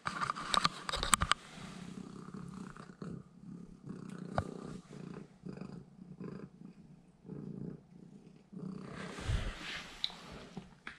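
Domestic cat purring close up in pulses while it eats a scrap of raw fish off the floor. A few clicks and knocks at the start, and a short rustle and thump near the end.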